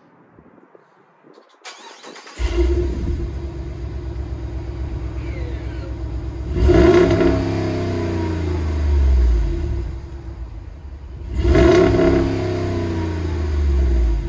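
2022 Jeep Grand Wagoneer's 6.4-litre V8 cranked by the starter and catching about two seconds in, then idling at the rear bumper. It is revved twice, about five seconds apart, each rev rising in pitch and easing back to idle.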